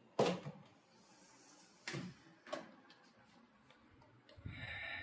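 Three short knocks or clicks, about a second apart, then a faint rustling noise near the end.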